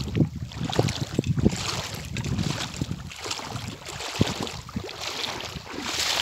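Wind buffeting the microphone in uneven gusts, with a few short thumps.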